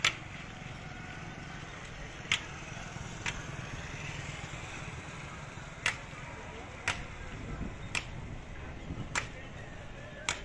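Steady rain falling, with sharp single knocks at irregular intervals every one to three seconds.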